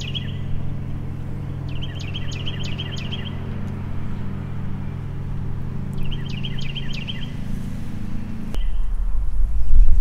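A lawn mower engine running steadily while a songbird repeats a short trilled phrase three times over it. About eight and a half seconds in, the engine sound stops and a louder low rumble takes over, with softer bird chirps.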